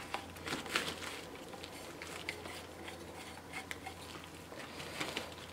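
Faint scattered clicks, taps and rustles of plastic parts being handled as a detachable side handle is fitted onto a cordless hammer drill.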